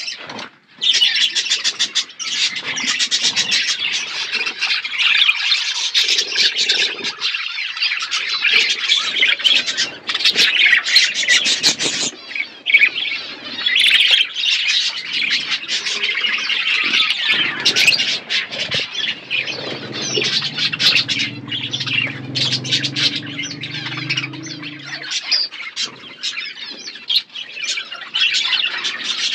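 A flock of budgerigars chattering and squawking without a break, many quick high chirps overlapping one another.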